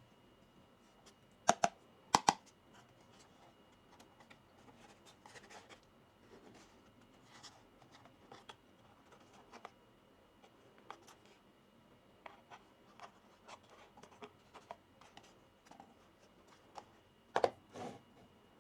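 Small plastic toy kitchen pieces being handled and set down: scattered light taps and clicks, with two sharp clacks a couple of seconds in and two more near the end.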